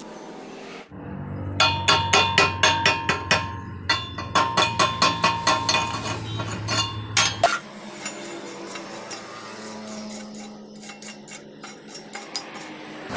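A hammer striking metal in quick runs of about four to five blows a second, each blow ringing. Two runs, a single harder blow, then lighter, scattered taps.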